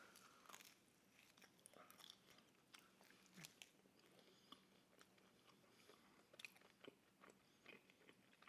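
Faint chewing and biting of pizza close to the microphone: soft irregular crunches and wet mouth clicks.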